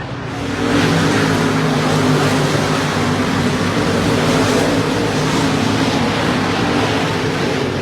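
Dirt modified race car engines running loud at speed, swelling in about half a second in and holding steady.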